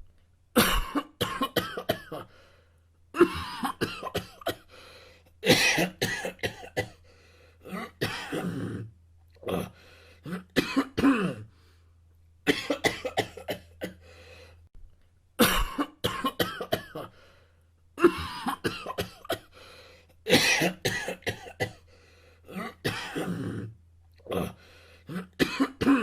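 Coughing, repeated all through: bouts of several sharp coughs each, with pauses of about a second between bouts, some coughs trailing into a throaty rasp.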